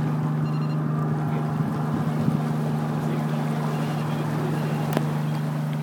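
Fishing boat's engine running steadily with a constant low drone, over a hiss of wind and water.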